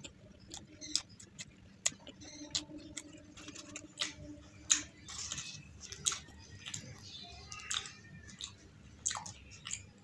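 A person chewing puri, the fried flatbread, with egg masala gravy, close to the microphone: irregular wet smacking and crisp clicking mouth sounds.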